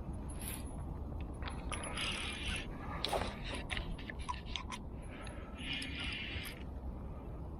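Fishing reel being cranked in three short spells, its gears whirring, with a run of sharp clicks and knocks in the middle.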